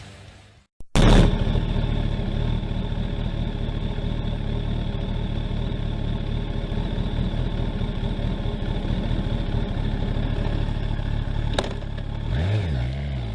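Motorcycle engine running steadily at idle, cutting in abruptly about a second in; near the end the level dips and the engine's pitch swings up and down as it is revved.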